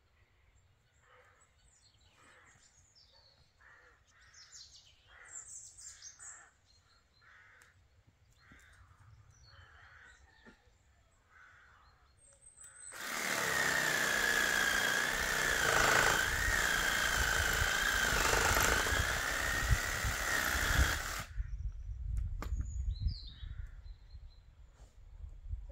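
Electric power saw cutting through a wooden board: a loud steady rasp with a wavering high whine that starts about halfway through and runs for about eight seconds, then stops. Faint repeated chirps come before it.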